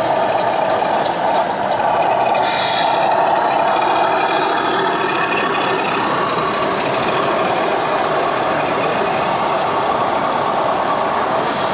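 Radio-controlled model Mercedes truck with a flatbed trailer driving, giving a steady mechanical drone.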